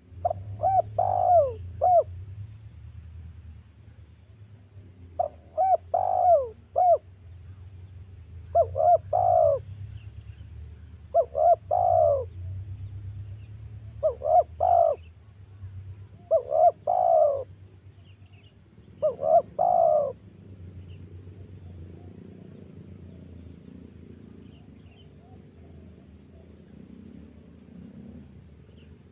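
Spotted dove (tekukur) cooing: seven short phrases of a few coos each, spaced a few seconds apart, over a low steady hum. The calls stop about two-thirds of the way in, leaving only the hum.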